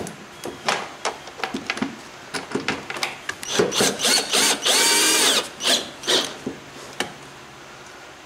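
Cordless drill driving bolts: scattered clicks and knocks, then the drill runs for about two seconds around the middle, its motor whine rising and then dropping, followed by a few more clicks.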